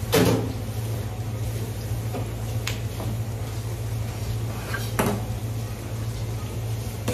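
Two hard knocks about five seconds apart, with a sharper click between them, over a steady low hum.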